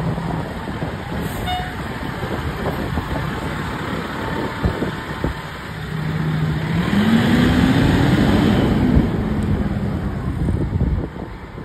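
Fire engine's diesel engine running and revving as the truck pulls away and drives past. Its note rises in pitch and grows loudest about two-thirds of the way through, then drops and fades.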